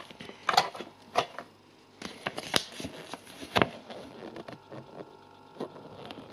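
A paper instruction leaflet being handled close to the microphone, rustling, with a few sharp taps and clicks scattered through.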